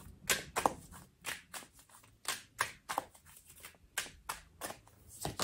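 A tarot card deck being shuffled hand to hand: a string of soft, quick card slaps and flicks, two or three a second, unevenly spaced.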